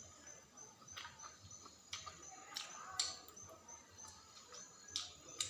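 Quiet eating sounds: scattered sharp clicks and smacks of people chewing momos. Behind them runs a faint, high chirp pulsing evenly about three times a second.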